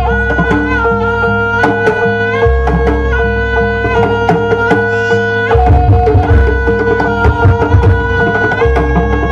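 Javanese jaranan ensemble music: hand drums (kendang) beating busily under a held, stepping reed-pipe melody, with deep low tones coming in and out.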